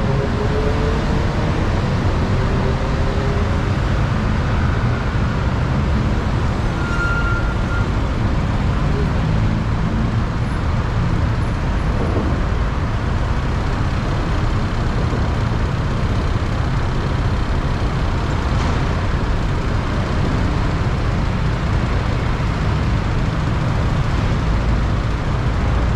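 Steady, loud road noise from a moving motorcycle taxi in city traffic: engine, tyre and wind rumble heaviest in the low range, with an engine note climbing in pitch in the first few seconds.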